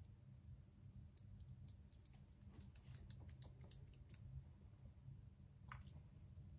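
Faint quick clicking of a metal eyelash curler being squeezed and released on the lashes, about a dozen small clicks over some three seconds, then a single click near the end, over a low steady room hum.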